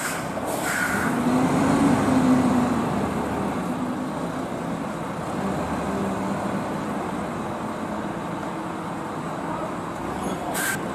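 Heavy multi-axle truck's diesel engine running as it pulls a loaded semi-trailer slowly forward, with a brief high squeal a little after the start and another just before the end.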